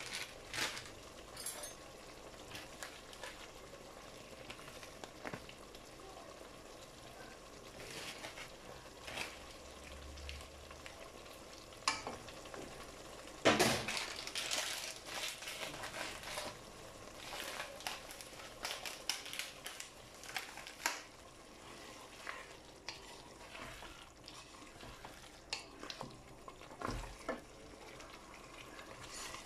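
Chicken curry sizzling and crackling in a nonstick pan, with a wooden spatula stirring and now and then knocking against the pan. One louder knock comes about 13 seconds in, followed by a busier stretch of stirring.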